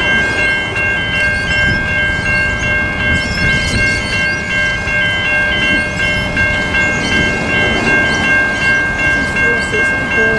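Level crossing warning bells ringing continuously in a rapid, even repeating pattern, the signal that a train is approaching, over steady low background noise.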